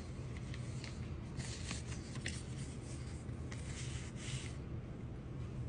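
Soft rustling and a few light clicks of small items being handled and rummaged through, over a steady low hum.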